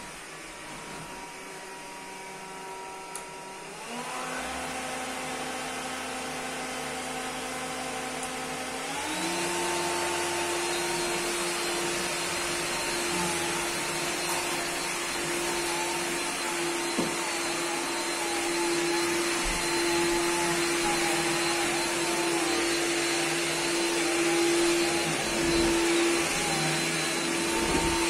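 Bosch Athlet 25.2V cordless stick vacuum running over carpet, a steady motor whine that steps up in pitch and loudness twice, about four and nine seconds in, then holds at its higher, louder pitch.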